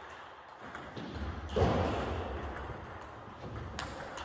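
Table tennis ball clicking off bats and table during a rally, a handful of sharp ticks, with a heavier thud about a second and a half in.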